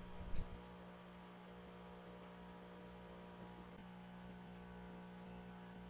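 Low, steady electrical hum with faint room noise, and a brief soft sound right at the start.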